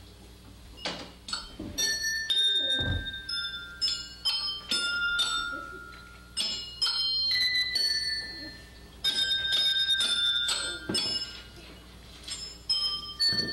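Metal chimes struck in an irregular run of high ringing notes at several pitches, each note ringing on briefly before the next, with a soft low thump a few seconds in.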